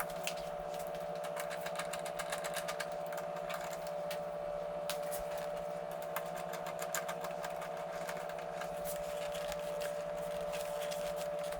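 A steady two-tone electrical or mechanical hum under frequent small clicks and light taps of parts and hardware being handled.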